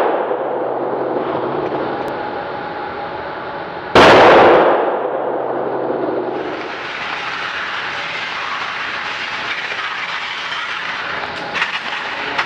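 A loud boom about four seconds in, ringing on and dying away over about a second, over a low steady hum. Then a steady rushing noise, with a few light clicks near the end as cartridges are handled.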